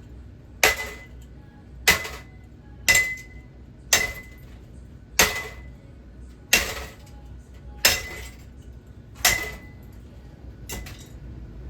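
A ceiling fan being smashed: eight heavy blows about a second apart, each leaving a short metallic ring, then two lighter knocks near the end.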